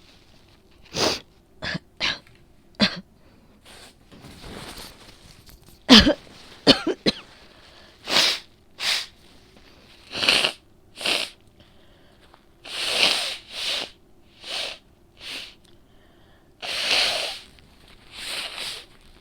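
A woman with a cold coughing over and over, a wet, phlegmy cough. Short sharp coughs come singly or in pairs, and longer drawn-out coughs come near the end.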